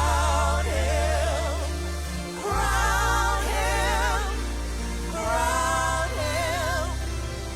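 Live gospel worship music: steady low bass notes under singers holding long notes with vibrato, in phrases that start about every two and a half seconds.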